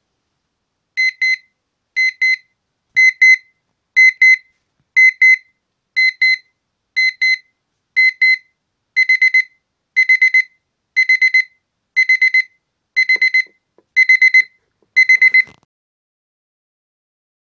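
Electronic alarm clock beeping: a high beep in pairs once a second, which switches to quick groups of four beeps each second about nine seconds in. It stops a couple of seconds before the end.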